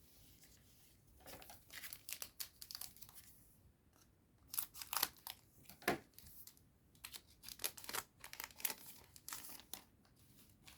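Foil wrapper of a Digimon Card Game booster pack being torn open and crinkled, in two spells of rustling with sharp crackles.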